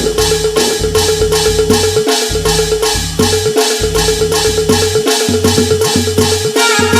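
Adivasi timli band music: madal drums beat a steady, fast rhythm over a held tone and a stepping bass line. A melody line comes in near the end.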